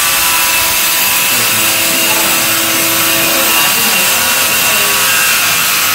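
Steady, loud hissing noise with no single event standing out, like a fan or wind on the microphone.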